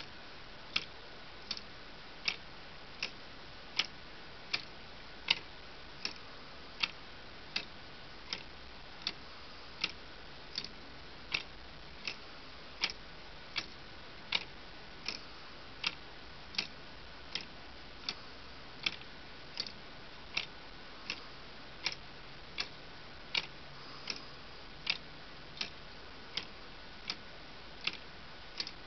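Lego clock escapement ticking: plastic parts click sharply and evenly, about four ticks every three seconds, as the wheel steps round.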